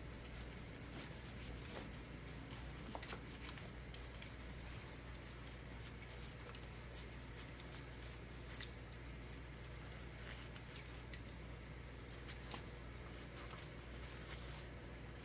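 Quiet handling: a microfiber cloth wiping the ceiling fan's brass canopy, with a few faint clicks and ticks over a low steady hum.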